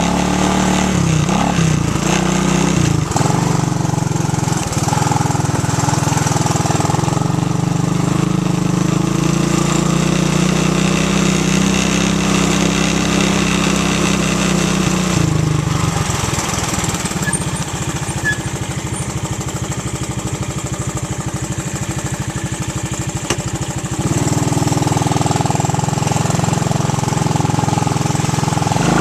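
Small ATV engine running, its pitch shifting up and down in the first few seconds and then holding steady; about halfway through it drops to a slow idle with separate firing pulses, then picks up again near the end.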